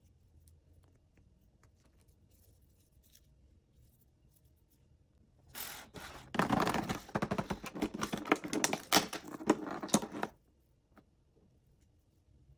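Packaging being handled while a small advent-calendar toy is unwrapped: faint small ticks, then about halfway in a rapid crackling and tearing that lasts about four seconds before stopping.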